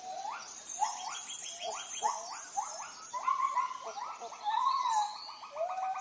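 Rainforest animals calling: a string of short rising whistled notes about twice a second, then from about halfway a fast, even pulsing call, with higher chirps above.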